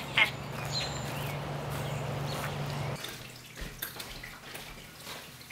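Outdoor ambience with a steady low hum, two short sharp sounds at the very start. About three seconds in it gives way to a quieter room with a few light knocks, a soft thump and rustling as a large flat box wrapped in cloth is handled.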